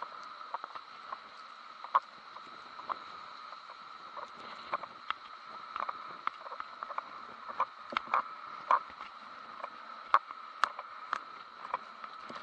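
Storm wind heard muffled through a sealed waterproof action-camera housing: a steady hiss with irregular clicks and knocks, about one or two a second.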